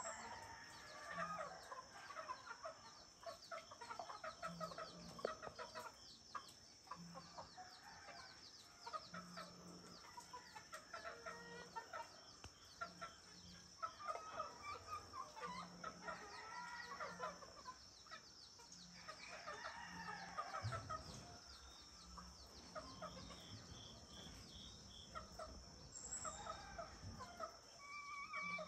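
Chickens clucking and roosters crowing at a distance, many short calls overlapping, with a faint steady high whine underneath.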